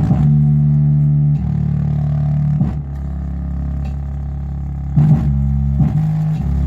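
Bass-heavy music played loud through a 12-inch subwoofer: long, deep bass notes that change every second or two, with a few sharp hits.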